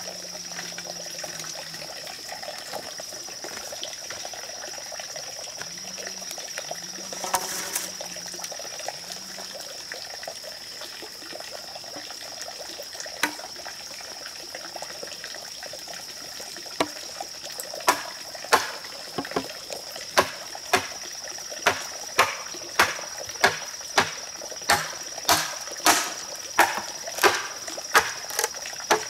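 Machete chopping into an upright green bamboo pole, starting a little past halfway: more than a dozen sharp, evenly spaced strikes, about three every two seconds. A steady high insect drone of the rainforest runs underneath throughout.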